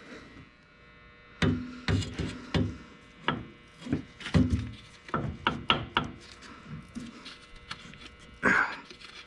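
A run of irregular knocks and light rubbing from parts or tools being handled during hands-on differential work, thickest in the first two-thirds and then tapering to faint clicks.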